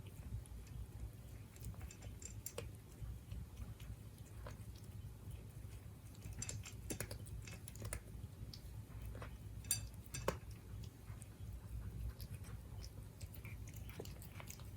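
Siberian cat chewing its food, with irregular small clicks and bites.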